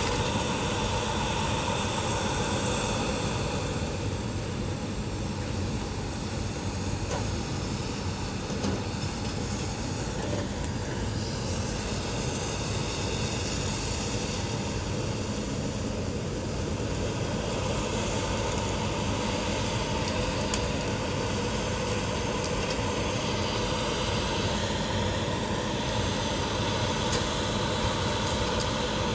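Caterpillar 568 forest machine's diesel engine running at working speed with a steady drone while the machine swings and handles logs with its grapple.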